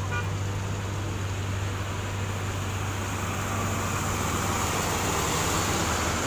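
Road traffic with a steady low engine hum, then a fuel tanker truck's diesel engine and tyres growing louder over the last few seconds as it drives past close by.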